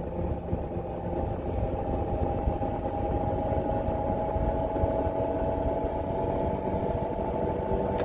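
Inside the cabin of a BMW 535i xDrive F10 at highway speed: a steady hum from the worn front wheel bearing hub assembly, over road and tyre rumble. The bearing is failing and due for replacement.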